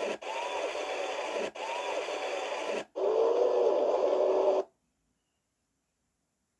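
Crowd cheering and applause, heard as a harsh noisy hiss with brief dropouts. It gets louder about three seconds in, then cuts off to dead silence after about four and a half seconds.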